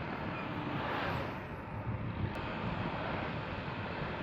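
Wind rushing and buffeting over an action camera's microphone on a moving motorcycle at about 70 km/h, a steady rush with uneven low fluttering and road and engine noise mixed in. The camera's microphone is behind a homemade anti-wind cover.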